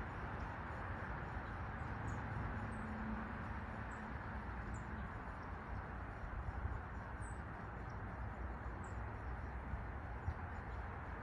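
Steady rushing noise with a low rumble under it, and small birds giving short, high chirps every second or two.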